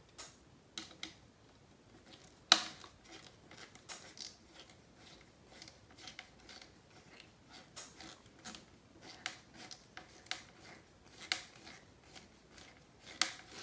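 Small hex driver turning a long screw by hand into the plastic front bulkhead of an RC buggy chassis: a run of light, irregular clicks and scrapes, with one sharper click a couple of seconds in.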